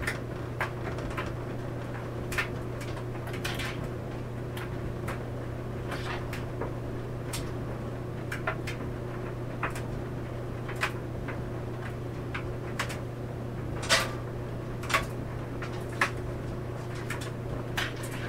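Clothes dryer running with a steady low hum as the laundry tumbles, with irregular knocks and clicks about once a second as items hit the drum. The loudest knock comes about three-quarters of the way through.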